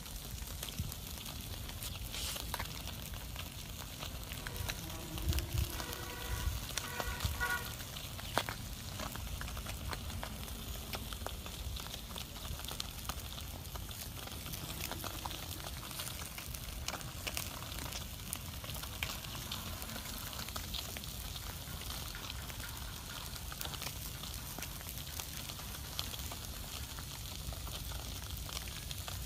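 Small open wood fire crackling and hissing steadily, with frequent small pops, as fish roast on sticks over it.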